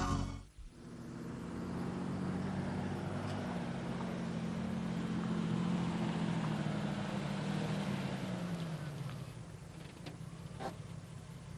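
A car driving by, its engine hum swelling and then fading after about eight seconds, with a few sharp clicks near the end.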